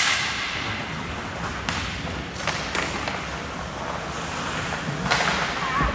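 Ice hockey play: hockey sticks and puck clacking, the sharpest and loudest crack right at the start, with a few lighter knocks after, and skate blades scraping the ice with a longer scrape about five seconds in.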